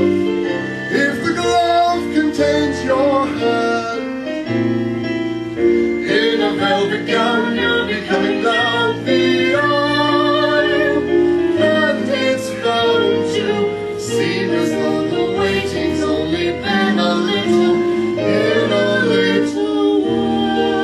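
Stage musical song: singing, led by a woman's voice, over an instrumental accompaniment, with vibrato on held notes.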